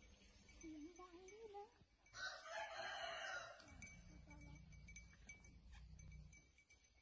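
A rooster crowing faintly, once about two seconds in, with a low hum for a few seconds after it.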